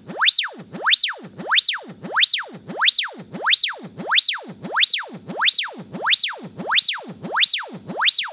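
A test tone sweeping smoothly from a low hum up to a high whistle and straight back down, over and over at about one and a half sweeps a second, played through a 2-inch (50 mm) 4 Ω 5 W speaker driver.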